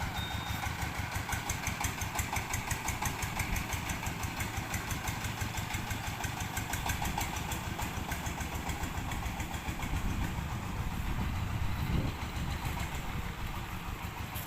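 Diesel engine of a mobile rice huller running steadily with a rapid, even beat.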